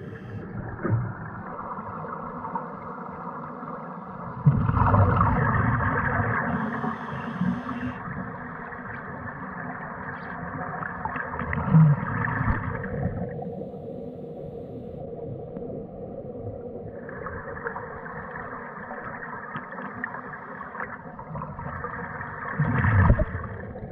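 Scuba regulator breathing heard underwater: long stretches of rushing, gurgling exhaust bubbles, about 4.5 s in and again from about 17 s, over a faint steady hum with a few small knocks.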